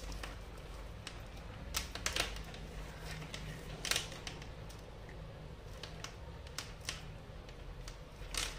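Irregular plastic clicks and rattles of a tangled string of LED decoration lights being sorted by hand, as the small plastic bulb holders knock together and the wires are pulled through. A low steady hum runs underneath.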